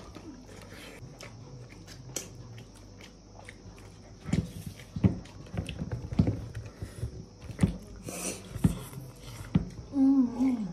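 A person chewing food close to the microphone, with irregular short mouth clicks and smacks starting about four seconds in. A brief hummed "mm" comes near the end.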